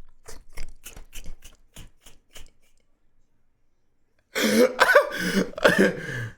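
A run of short, evenly spaced clicks that fade out over the first two and a half seconds. After a pause, a man coughs and clears his throat for about two seconds near the end.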